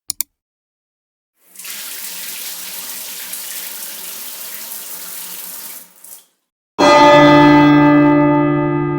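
Two quick clicks, then a steady rush like water running from a tap for about four and a half seconds, cutting off abruptly. About seven seconds in, a bell is struck once and rings on, fading slowly.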